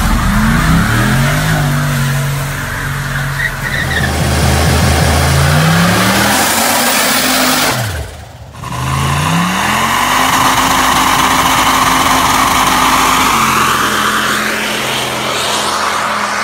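Car engines revving hard during burnouts, with rear tyres spinning and squealing on pavement. The revs climb and fall a few times. After a short break about halfway, an engine rises and holds at high revs over a steady tyre squeal, then drops back a few seconds before the end.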